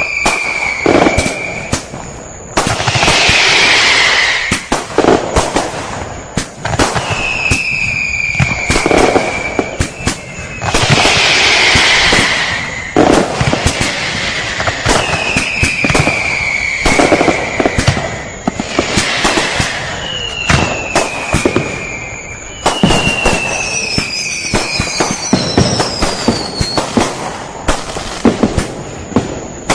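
Fireworks going off in a dense run of sharp bangs and crackles, with repeated whistles that fall slightly in pitch and two hissing bursts of about two seconds each. Near the end several higher whistles sound close together.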